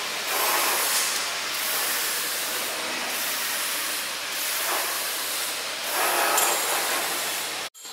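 CNC wire-bending and end-forming machine running as it bends a steel rod: a steady hissing noise that swells every second or two, cutting off suddenly near the end.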